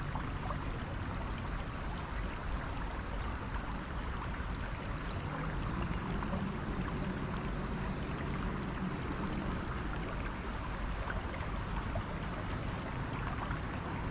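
Steady rush of flowing water where a small creek runs into a river.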